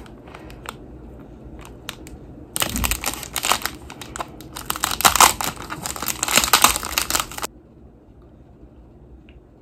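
Clear plastic wrapper of a packaged brownie crinkling as it is handled and opened. A few light clicks come first, then dense crinkling for about five seconds from about two and a half seconds in.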